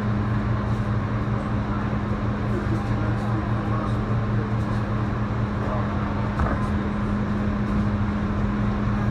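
An R160B subway car with Siemens propulsion running along elevated track, heard from inside the car: steady running noise of wheels on rails with a constant low hum.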